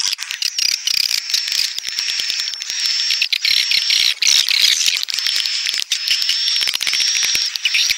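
Recorded swiftlet calls played back as a lure: a dense, continuous chorus of high buzzy twitters and rattling clicks, with a thin steady high whistle running through it. This is the call sound swiftlet farmers play to draw edible-nest swiftlets into a nesting house.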